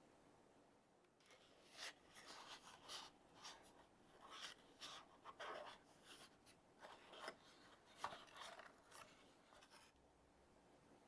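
Soft irregular rubbing, scraping and rustling as keyboard accessories and their packaging are handled during unboxing. The sounds start about a second in and stop near the end.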